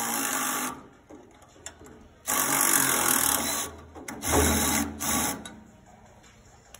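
Cordless power tool running in several short bursts, one of them about a second long, tightening the V-band clamp that holds a diesel particulate filter onto the aftertreatment unit.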